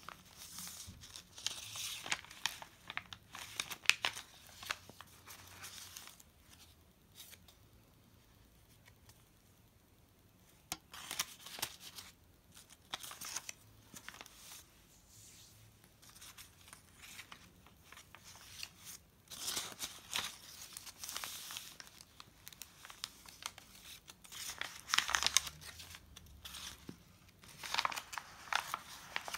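Pages of a handmade junk journal turned by hand: crinkled, aged paper pages rustling and crackling in several bouts, with quiet pauses between.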